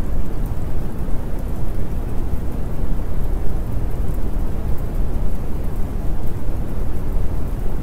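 Steady rainstorm ambience: an even hiss of rain over a continuous low rumble, with no separate drops or thunderclaps standing out.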